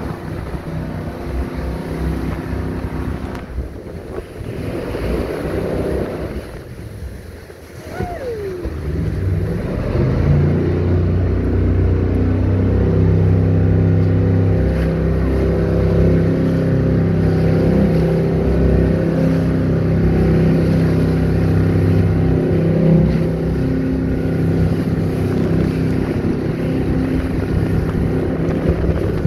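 Jet boat engine running on the water, with wind buffeting the microphone and water rushing past. About nine seconds in, the engine picks up into a louder, steady run at speed.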